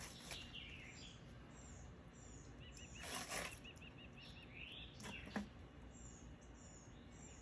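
Songbirds chirping and calling, with a quick run of about ten repeated notes near the middle and a few short rising calls. Two or three brief scuffing noises are heard around the middle as well.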